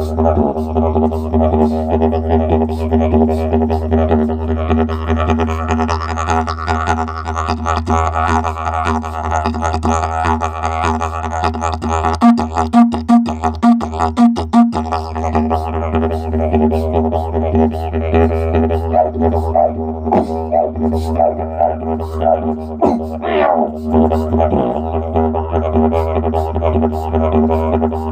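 Didgeridoo played with a continuous low drone, the player's voice sounding through it and shifting the tone above the drone. About twelve seconds in, the drone breaks off five times in quick succession, each time with a loud accent.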